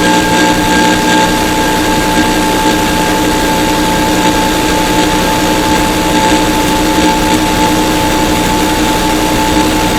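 Loud, steady static hiss with several constant buzzing tones over it: the noisy audio of a weak, long-distance TV signal (TV-DX) recorded on a badly damaged tape.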